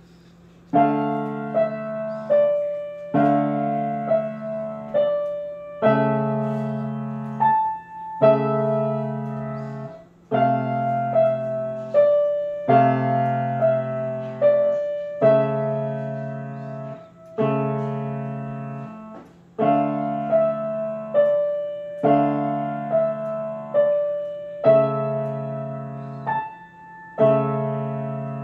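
Grand piano played solo: bass chords held under short right-hand figures, the phrase starting over about every two and a half seconds. The playing begins about a second in.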